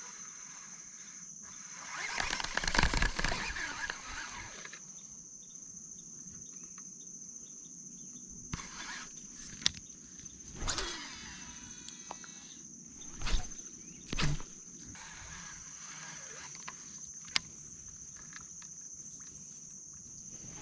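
Insects droning steadily at one high pitch, with several louder bursts of rustling and knocking, the longest about two seconds in.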